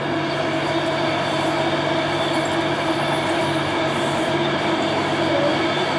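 Electric passenger train running past on the line, most likely the Class 390 Pendolino that was announced: a steady hum with several held tones over rail noise.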